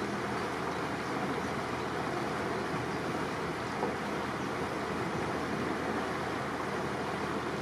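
Steady rushing noise of a cruising boat: water washing along the hull, with wind on the microphone.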